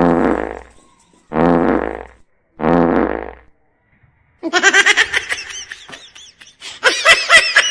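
Three fake fart noises from a prank sound effect, each a low buzzy blast about a second long with short gaps between. They are followed by a few seconds of high-pitched, choppy laughter.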